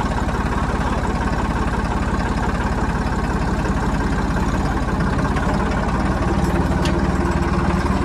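Tractor diesel engine idling steadily right after start-up, heard close up, with a fast, even pulse.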